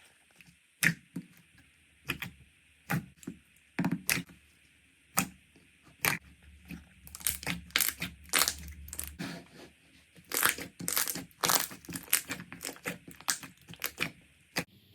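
Slime being pressed and worked by hand, giving irregular sharp pops and crackles: sparse at first, then coming in quick clusters from about halfway, stopping just before the end.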